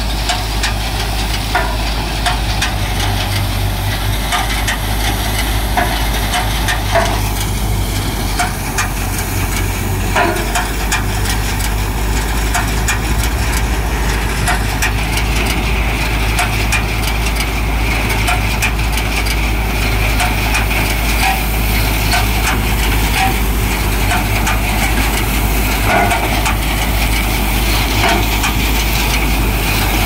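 Punni Grain Cruiser combine harvester running: a steady engine drone with a low hum, scattered knocks and crackles from the machinery. A higher whine joins about halfway through.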